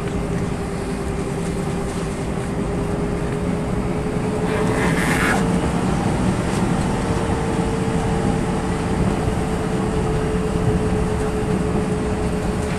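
Airbus A321-131's IAE V2530 turbofan engines heard from inside the cabin during the takeoff roll: a steady engine hum over the rumble of the wheels on the runway. The hum rises slightly in pitch and the whole sound grows louder about four seconds in as the engines spool up toward takeoff thrust.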